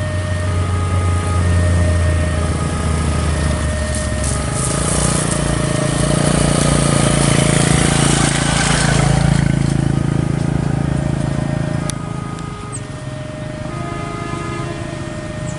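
Road traffic on a wet road: a motorcycle engine running close by at first, then a vehicle passing with tyre hiss that swells, peaks midway and drops off sharply about twelve seconds in.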